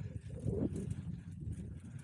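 Bicycle rolling over a bumpy dirt trail: a low, uneven rumble from the tyres and frame, with light rattling clicks from the bike.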